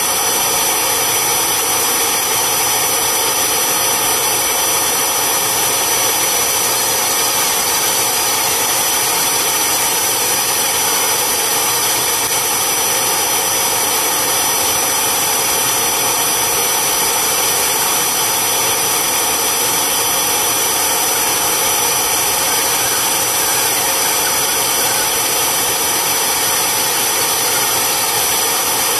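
Vacuum or carpet-extractor motor running steadily, a constant loud rushing hiss with a high whine over it, as upholstery is scrubbed and extracted.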